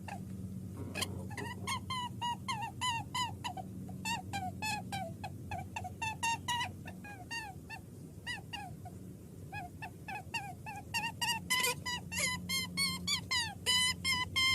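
Puppies whimpering and yelping in a rapid string of short, high calls, several a second, growing busier and more overlapping near the end, over a low steady hum.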